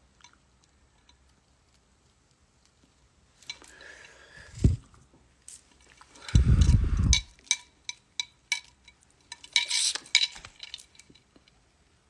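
Scattered light clicks and clinks, like small hard objects being handled, with a short low rumbling burst of handling noise about six seconds in.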